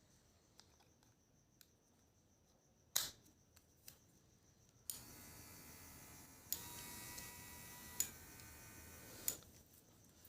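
A click, then the small electric motor of a handheld facial massage device running steadily for about four seconds, getting louder partway through, with short clicks before it stops.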